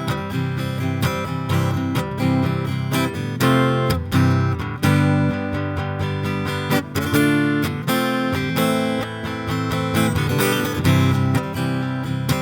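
Acoustic guitar strumming chords, an instrumental passage between sung verses.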